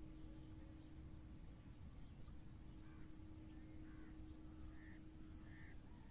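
Near silence: faint outdoor ambience with distant birds calling, short scattered chirps and a few brief calls in the second half, over a low rumble and a steady low hum.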